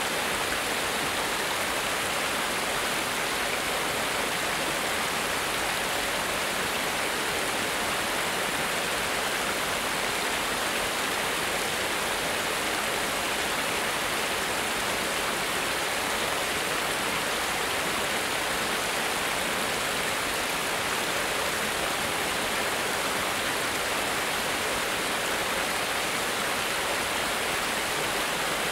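Small cascade on a stream: water pouring over a low stone step in a steady, even rush.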